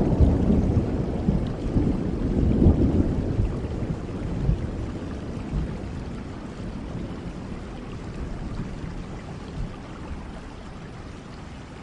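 A roll of thunder rumbling low and slowly dying away over steady rain.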